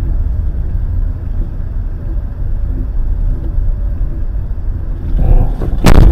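Steady low rumble of a car driving on a snowy road, heard from inside the cabin. Near the end comes one loud crash as the car collides.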